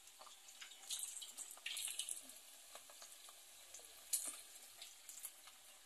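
Empanadas frying in hot oil in a glazed clay pan: a faint steady sizzle and crackle, with a few sharper clicks as a metal spatula works in the pan.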